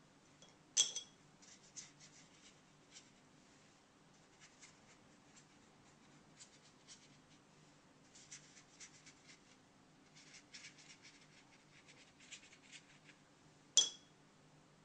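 Faint strokes of a watercolour brush brushing and scratching across paper in short clusters, with two sharp ringing clinks, one about a second in and one near the end.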